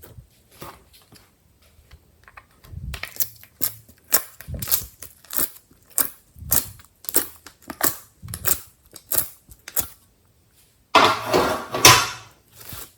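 Hands squishing and poking glossy slime, making a string of short, sharp clicks and pops, about one or two a second. About two seconds before the end comes a longer, louder squelching rush.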